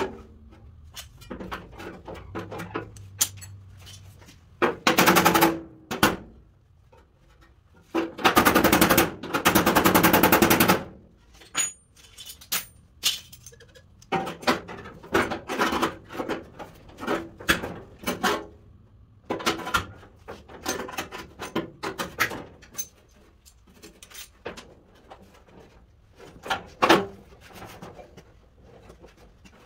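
Rapid-fire hammering on the rusty sheet-steel rear fender of a 1953 Chevy truck, in two bursts: a short one about five seconds in and a longer one of about three seconds a little later. Around them come scattered single metal knocks and clatter as the torn edges are worked back into shape.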